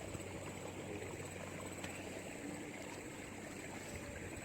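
Steady ambient noise of water at a riverside fishing spot, even and unbroken, with a faint steady high-pitched tone above it.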